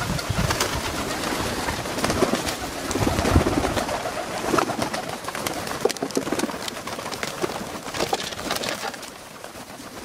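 A flock of pigeons and white doves flapping their wings close by, with many quick wing claps and flutters, and some cooing.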